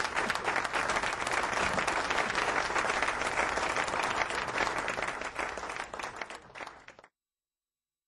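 Audience applauding, thinning out toward the end and cutting off abruptly about seven seconds in.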